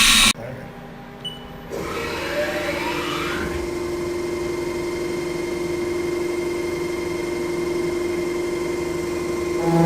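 CNC machining center starting its programmed cycle. A loud hiss cuts off just after the start, then the spindle spins up with a rising whine about two seconds in and settles into a steady running hum. Near the end the machine gets louder, with more tones joining in.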